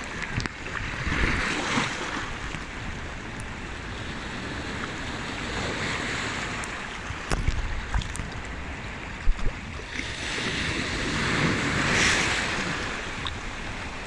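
Small sea waves surging into a narrow gap between shoreline rocks and draining back, a continuous wash of water that swells to a splash three times. A few short sharp clicks come in the middle.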